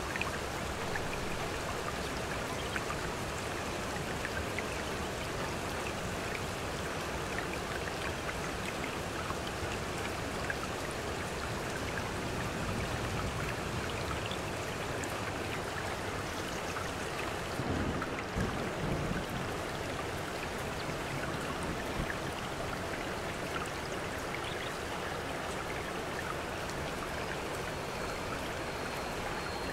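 Steady rainfall mixed with running stream water, with a brief low rumble about two-thirds of the way through.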